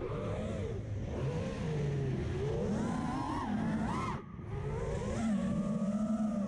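FPV quadcopter's brushless motors and propellers whining, the pitch rising and falling with the throttle, with a short dip about four seconds in as the throttle is chopped and then brought back. Wind rushes over the onboard camera's microphone underneath.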